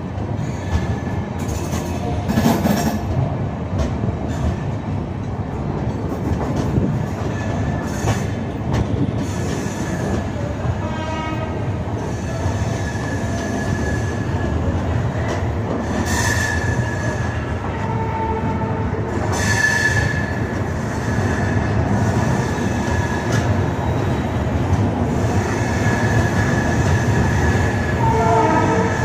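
Passenger train coaches rolling slowly into a station: a steady rumble of wheels on rail, with high metallic squealing tones that come and go.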